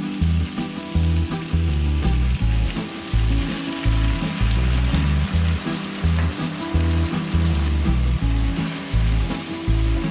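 Mutton pieces sizzling as they fry in oil in a wok, a steady crackling hiss, over background music with a stepping bass line.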